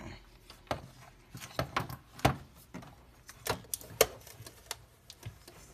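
Scattered sharp plastic clicks and knocks, a dozen or so at uneven intervals, from a printer's external ink tank unit being handled and moved against the printer.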